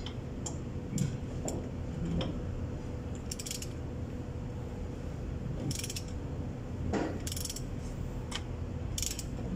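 Ratchet wrench clicking in short, irregular strokes as it turns the adjuster of a MAN TGS truck's air-disc brake caliper, winding it back to make room for the new brake pads.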